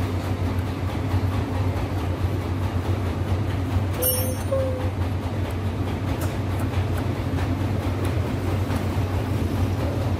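Steady low rumbling hum at an even level, with one brief high squeak about four seconds in.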